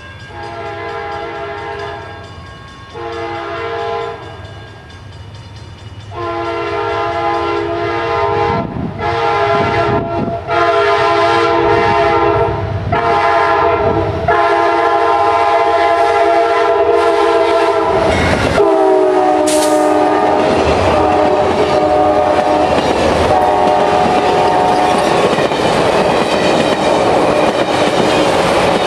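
Passenger train's air horn sounding for a grade crossing: a blast of about two seconds, a shorter one, then a long held blast as the train closes in. The horn's chord drops in pitch as the locomotive passes, about two-thirds of the way through. After that the coaches' wheels clatter steadily over the rails as the cars go by.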